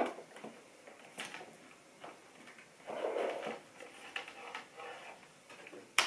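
Handling noise from a desktop microphone and its cable being adjusted: scattered small clicks and taps, a short rustling scrape about three seconds in, and a sharp click at the very end.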